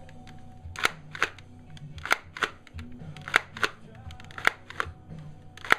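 Pump action of a Lego brick-built M1897 trench gun being worked back and forth. The fore-end clacks plastic on plastic at each end of its slide, in pairs about one pair a second.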